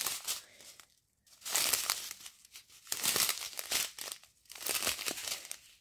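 Small plastic bags of round resin diamond-painting drills being handled, the plastic crinkling in several short irregular bursts.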